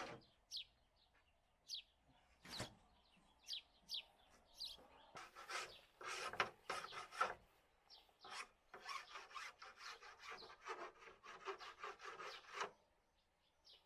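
Repeated scraping strokes, scattered at first, then a steady run of two or three a second from about five seconds in, stopping shortly before the end.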